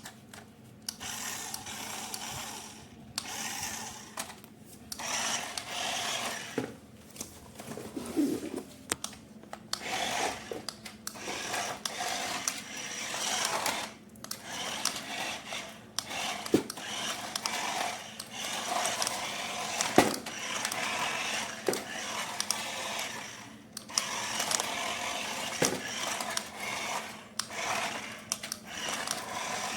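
Small electric motor of an RC toy whirring in uneven bursts of a second or a few seconds, with short pauses and a few sharp plastic clicks between them.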